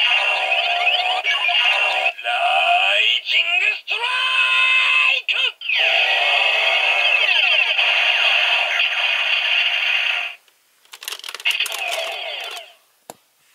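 Electronic toy gun playing its built-in sound effects and announcer-style voice through a small tinny speaker, full of swooping, gliding tones. It runs for about ten seconds, pauses briefly, plays a shorter second burst, and ends with a single plastic click.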